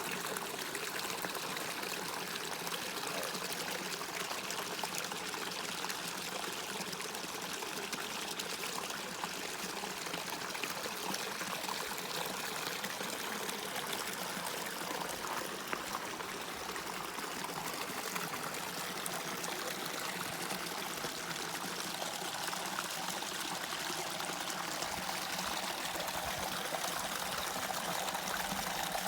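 Natural hot spring water flowing steadily into a bathing pool, a continuous trickling and pouring.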